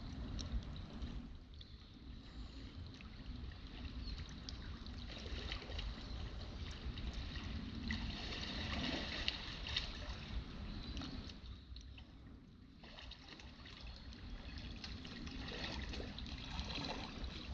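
A shallow river flowing and trickling. Near the end, soft kayak paddle strokes come in as the boat nears.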